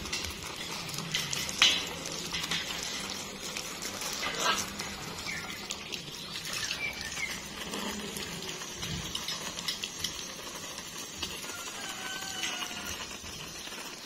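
A hose's water spray hissing and pattering as it splashes onto a macaw and through the wire bars of its cage. There are a couple of sharp knocks, about two and four and a half seconds in.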